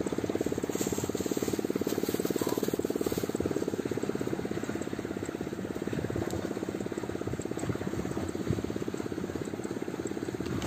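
A small engine running steadily with a fast, even chugging pulse.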